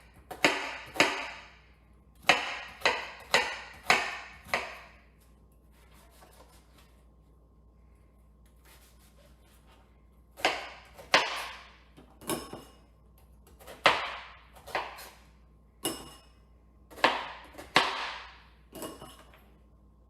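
Kitchen knife dicing an onion on a cutting board: runs of sharp chopping strikes, a few a second, with a pause of about five seconds in the middle.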